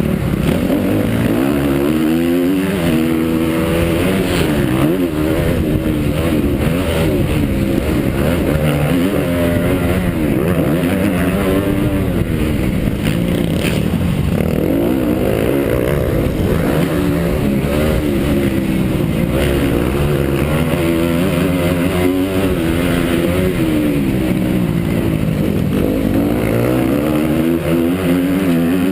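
Honda CRF250 four-stroke motocross bike at racing speed. The engine revs up and drops back over and over through gear changes and throttle on and off.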